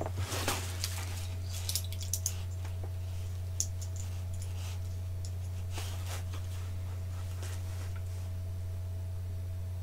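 Light clicks and rustling of small metal button badges and paper being sorted by hand, mostly in the first few seconds, over a steady low electrical hum.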